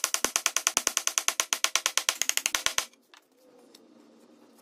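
Rapid, evenly spaced knocking on wood, about ten knocks a second, as a wooden rail is driven down into a table leg joint; it stops abruptly about three seconds in, once the joint is seated. Faint handling noise and a single click follow.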